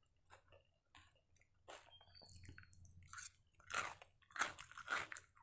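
Close-up crunching as a person bites and chews raw cucumber slices: irregular crisp crunches, sparse at first and louder and closer together from a little past halfway.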